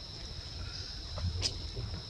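Steady high-pitched insect drone with a low rumble beneath it, and two short clicks a little past halfway.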